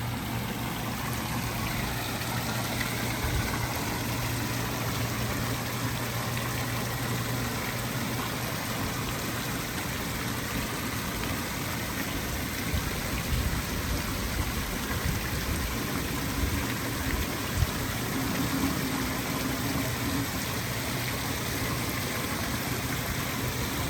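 Steady rushing and splashing of fountain water, an even hiss that does not change.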